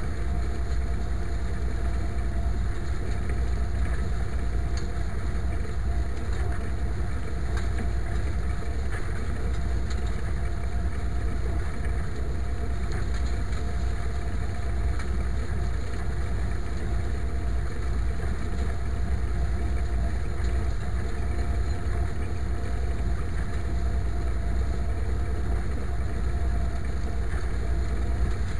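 IMT 539 tractor's three-cylinder diesel engine running steadily under load while pulling a harrow. A low rumble carries a thin, unchanging tone throughout.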